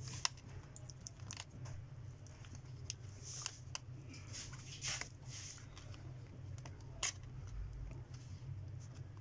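Small clicks, taps and light rustling of fingers handling a laptop's battery cable and plug against the motherboard, with a sharp click about a quarter second in and another about seven seconds in, over a steady low hum.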